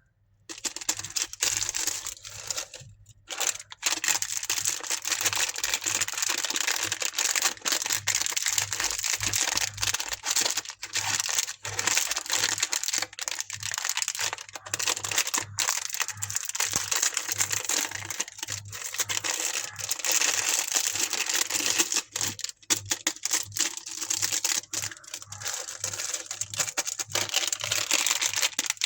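Candy wrappers being crinkled and torn open as candies are unwrapped: a dense, continuous crackle with brief gaps, and a short pause about three seconds in.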